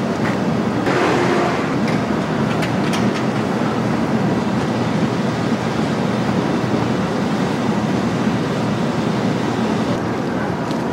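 Steady low rumble of city street traffic noise, with a few faint clicks about three seconds in.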